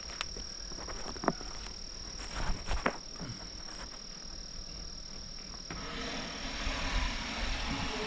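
Night insects, most likely crickets, keep up one steady high-pitched trill, with a few sharp clicks early on. About six seconds in, a rushing noise rises under it.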